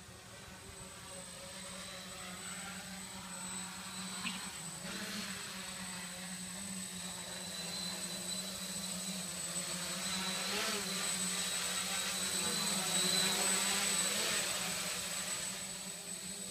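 V-tail quadcopter's electric motors and propellers running with a steady buzz. The buzz grows louder through most of the stretch, then eases off near the end.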